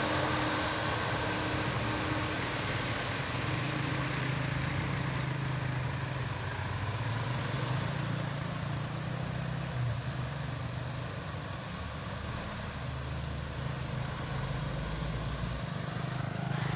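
Heavy diesel truck engine running with a steady low drone under load on a steep uphill grade.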